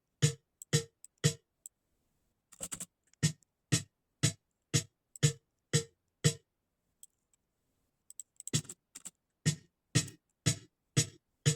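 Snare drum hits, close-miked and processed, repeating steadily about two a second and stopping twice for a second or two. Each hit dies away quickly because a noise gate is cutting its tail, and the gate is set too hard.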